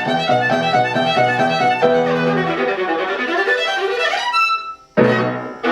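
Viola played with the bow: a quick run of notes, stopping briefly about five seconds in, then starting again.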